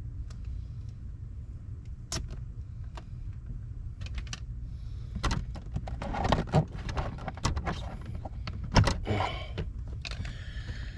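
Scattered clicks, rattles and knocks of hands and tools working at a car's door sill trim, busier after about five seconds, with one sharp knock about nine seconds in, over a steady low hum.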